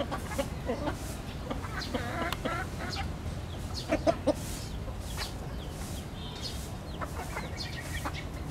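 Chickens clucking: short clucks scattered throughout, with two louder ones about four seconds in.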